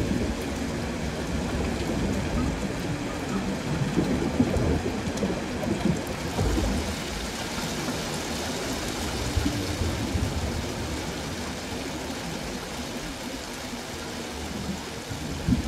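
Steady rain, growing a little quieter near the end.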